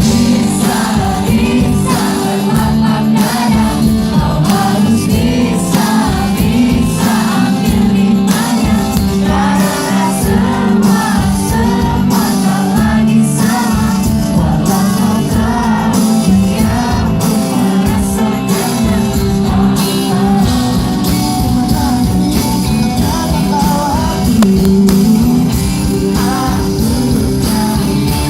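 Pop-rock band playing live with a steady drum beat, a singer's voice carrying the melody.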